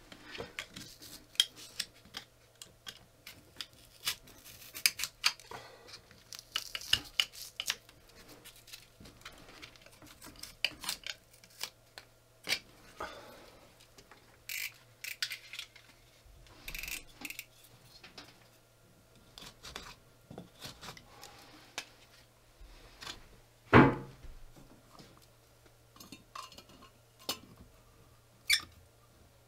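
Utility knife scraping and picking at dried insulation foam in the chinking between logs: an irregular run of small scrapes and clicks, with one louder knock about three-quarters of the way through.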